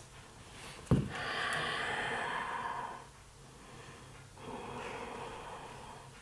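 A person breathing audibly while holding a deep forward-fold stretch: a short thump about a second in, then two long breaths, each lasting about two seconds.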